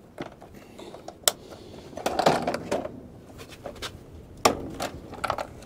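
A clear plastic squid-jig tackle box being handled and opened on an aluminium bench: a few sharp clicks and knocks of the plastic case and lid, with handling noise in between.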